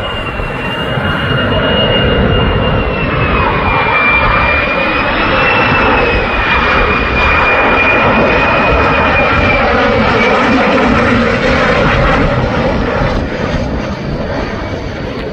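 Lockheed Martin F-35's single Pratt & Whitney F135 jet engine flying past on approach with landing gear down: a steady jet roar with a high, wavering whine that fades out about two-thirds of the way through.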